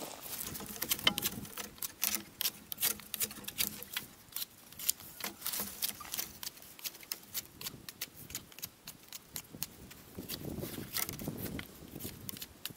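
Knife blade whittling a thin wooden stick: a quick, irregular run of sharp clicks and short scrapes as it cuts into the wood.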